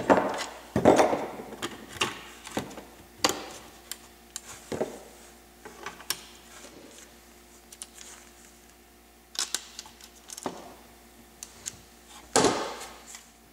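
Hard plastic clicks, snaps and knocks as a car's plastic fuse box case is handled and pressed together, at irregular intervals with the loudest knock about twelve seconds in.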